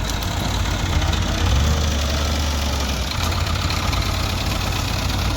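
Heavy diesel engine running steadily at idle, with its low hum swelling deeper and louder for about a second and a half from about a second and a half in.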